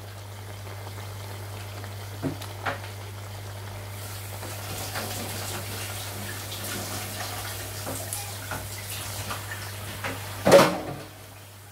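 Catfish in tomato sauce simmering in a pot: a soft bubbling, sizzling hiss with small crackles that grows a little louder about four seconds in, over a steady low hum. One short knock near the end.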